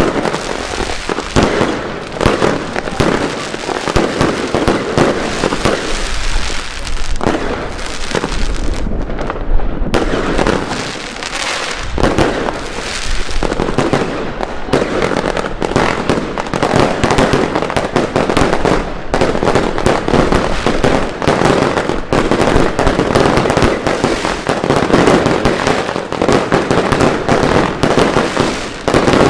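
Aerial fireworks going off in rapid succession: a dense, unbroken barrage of bangs and crackling from bursting shells.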